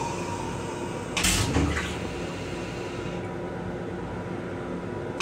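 Flush of an M7 commuter railcar toilet: rinse water hissing into the steel bowl, with a loud whoosh and low thump a little over a second in as the bowl empties. The rinse fades out about three seconds in, leaving the car's steady hum.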